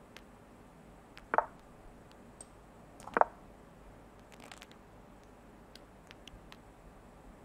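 Online chess move sound: two short wooden clacks about two seconds apart, one for each player's move, with a few faint clicks around them.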